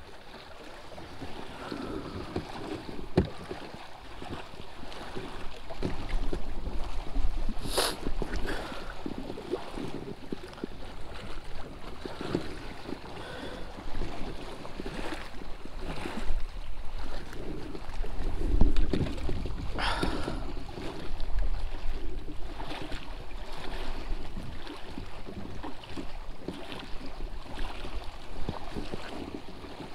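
Water lapping and sloshing against a kayak's hull with wind buffeting the microphone, broken by a few sharp clicks and knocks, the clearest near 8 and 20 seconds in.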